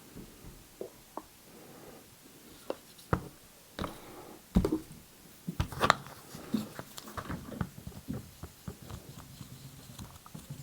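Hands working on a plastic toy with baby oil and a cotton swab: scattered light clicks, taps and rubbing of small plastic parts, the sharpest knocks around the middle.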